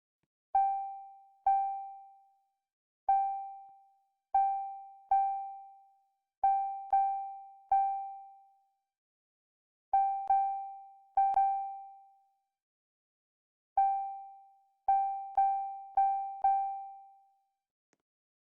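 A single keyboard note of the same pitch played about seventeen times in an uneven rhythm, each one ringing and fading within about a second, with dead silence between the notes.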